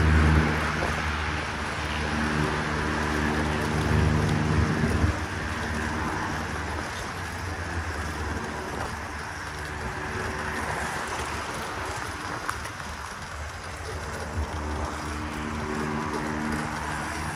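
Riding an electric dirt bike off-road: a steady rush of wind and tyre noise, with a steady low hum for the first five seconds or so that fades, then returns near the end.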